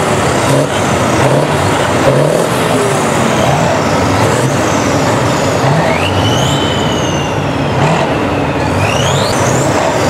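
A row of Kirovets K-700 and K-701 tractors' V8 and V12 diesel engines revving together in a massed 'organ concert', with high whistles that rise and fall as the revs come up and drop.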